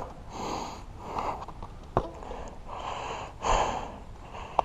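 A person breathing hard in heavy, noisy breaths, about five in all, with a couple of short sharp clicks between them.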